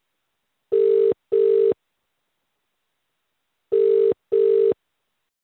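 Telephone ringback tone on an outgoing call, the Indian "ring-ring" pattern: a low hum-like tone in pairs of short pulses, heard twice about three seconds apart. It means the called phone is ringing and has not yet been picked up.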